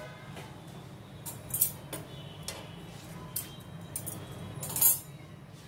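A papad dry-roasting on a hot nonstick tawa, giving scattered faint crackles and ticks as it blisters, the loudest about one and a half and nearly five seconds in, over a low steady hum.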